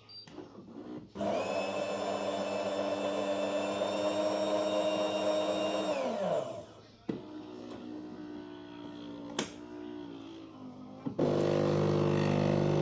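Philips automatic coffee machine running. A motor whirs steadily for about five seconds, then winds down with its pitch falling. A quieter hum and a sharp click follow, then a louder steady hum starts near the end.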